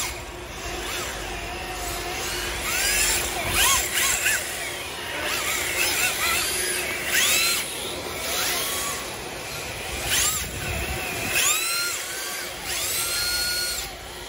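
Electric RC drift cars running on a smooth concrete floor, their brushless motors whining up and down in pitch with each burst of throttle, again and again, over a hiss from the tyres sliding.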